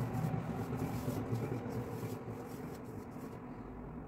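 Faint rustling and scraping of a hand rubbing flour in a bowl, working sprinkled milk into the flour to make crumbs.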